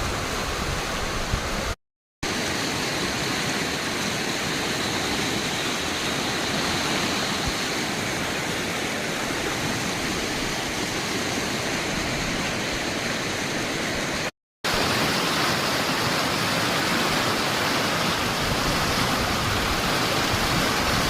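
Loud, steady rushing water, as from a waterfall or fast stream, cutting out to silence twice for a fraction of a second.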